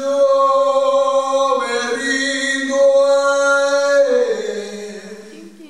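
A man singing one long held note, which drops to a lower note about four seconds in and fades out.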